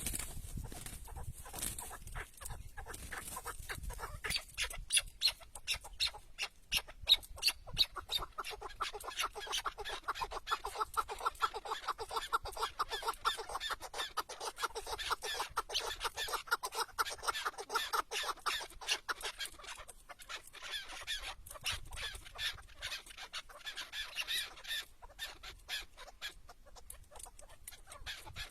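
Chukar partridges calling: a long run of rapid, repeated clucking notes that builds up a few seconds in and carries on steadily.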